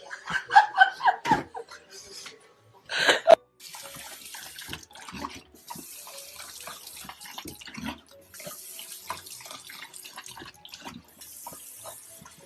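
Water running in four stretches of about two seconds each, with short breaks between, like a tap or spray being turned on and off. It follows a brief wavering vocal sound and a short loud burst near the start.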